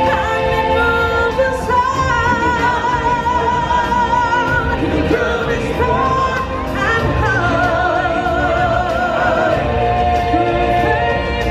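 Live stage-show music: several singers holding long notes with a wavering vibrato over a full band backing.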